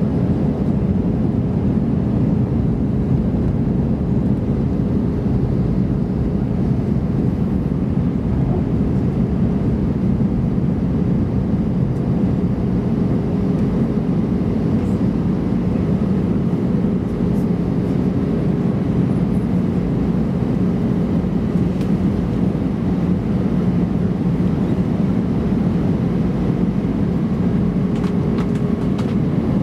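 Steady cabin noise inside an Airbus A320-214 descending on approach: the hum of its CFM56 engines and the rush of air over the airframe, with a faint steady tone running through it.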